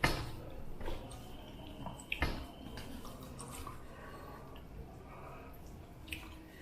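Wet, squishing sounds of food being eaten, broken by a few sharp clicks and knocks of dishes, the loudest about two seconds in with a short ring after it.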